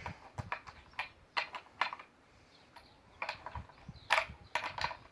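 Sharp metal clicks and clinks in irregular clusters as the nuts on a STIHL chainsaw are tightened back down after the chain has been tensioned.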